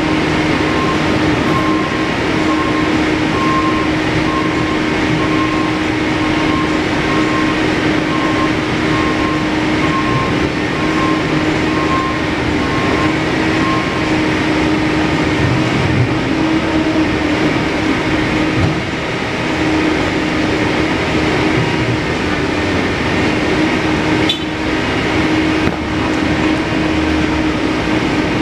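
Steady, loud mechanical hum with a constant low tone, and a faint beep repeating about once a second that stops about halfway through.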